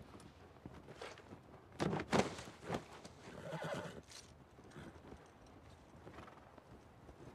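Horses standing and shifting under their riders: hooves stamp twice about two seconds in, then a horse gives a short whinny about a second later.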